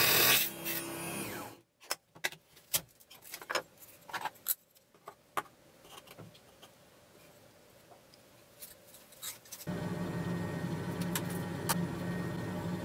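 Sawing noise fades out at the start, then a run of light clicks and taps as small metal strips are picked up and set down on a wooden board. Near the end a steady low hum comes in suddenly.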